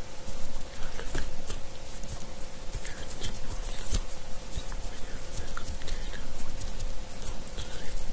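Irregular close-up clicks, taps and rubbing, like something handled against the microphone, over a steady hum.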